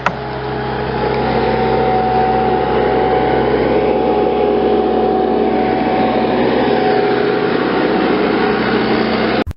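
Hydraulic Red Boss tree spade and the engine that powers it, running steadily under load with a steady whine over the engine noise. It builds over the first second and stops abruptly near the end.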